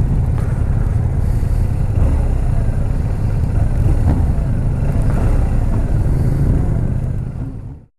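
BMW R1200RT boxer-twin motorcycle running at low speed among a group of motorcycles, with heavy wind rumble on the microphone. The sound fades out near the end.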